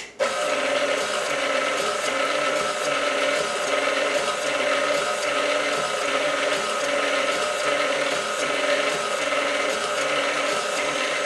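A 25-year-old KitchenAid stand mixer running steadily at speed one, turning the ice cream maker attachment's dasher in the freeze bowl. It starts right at the beginning and gives an even motor hum with a faint pulse about once a second.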